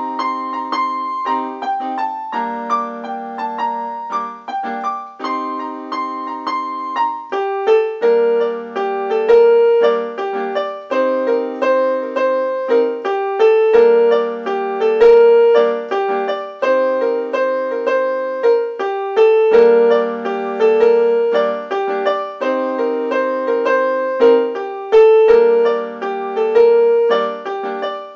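Yamaha electronic keyboard played with a piano voice: low held chords change every two to three seconds under a repeating melody riff that comes in about eight seconds in and carries on.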